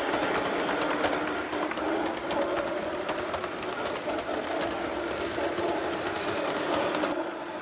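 Freight cars of a Lionel O-gauge model train rolling past on three-rail track, wheels clicking rapidly over the rails with a steady rumble. The clicking stops abruptly about seven seconds in, as the last car goes by.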